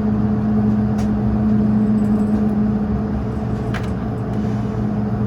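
Steady drone and hum inside the cabin of an Airbus A220-300 on the ground during pushback and engine start, with two faint clicks, one about a second in and one near four seconds in.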